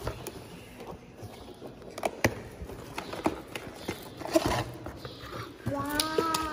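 Cardboard boxes and books being handled and unpacked: scattered taps, knocks and rustling of card and paper. Near the end a voice, likely a child's, starts a drawn-out call.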